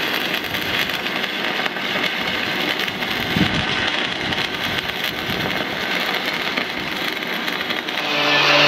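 Stick (arc) welding with a 3.2 mm rod at about 110 amps, weaving a pad weld across rust holes in 4 mm steel boat plate: the steady crackling sizzle of the arc. Near the end a louder steady hum comes in over it.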